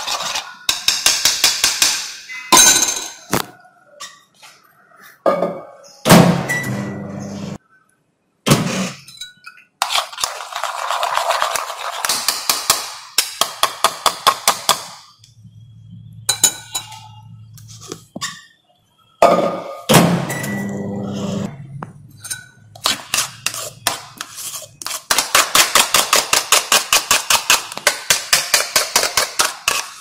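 A metal teaspoon stirring and scraping wheat-starch paste in a small cut-glass bowl: spells of rapid, even clinking of spoon against glass, broken by a few sharp knocks.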